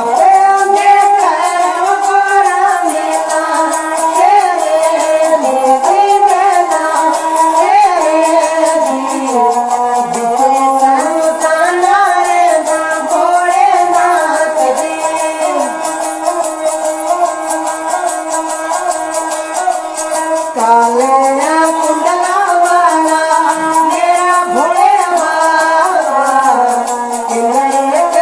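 A song: a high voice sings a gliding melody over quick, steady ticking percussion.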